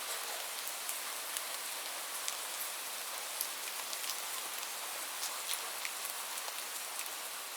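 Light rain falling steadily, a soft hiss with many scattered individual drop ticks on a surface.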